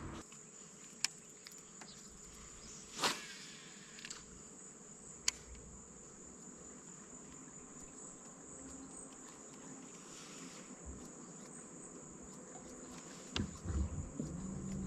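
Insects chirring in a steady, high-pitched drone, with a few faint clicks and knocks over it. A low steady hum starts near the end.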